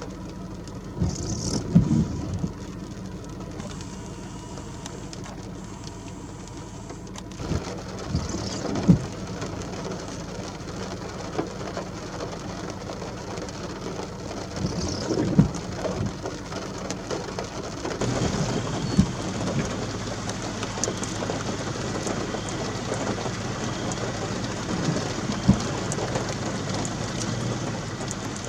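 Heavy thunderstorm rain and gusty wind, with about five sudden loud thumps.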